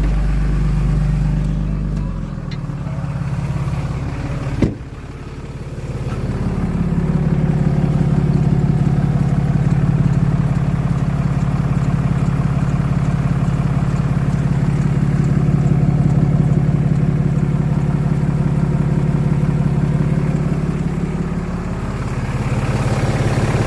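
Ram 3500's 6.7-litre Cummins turbo-diesel running at idle with a squealing, squeaking serpentine belt: a belt squeal that has come back about 1,700 miles after a new belt was fitted. There is a single sharp click about four and a half seconds in, and the engine grows louder about six seconds in and eases again near the end.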